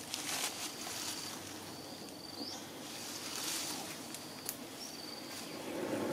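An insect calling, a thin high steady note repeated several times, over a quiet outdoor background with a few sharp clicks.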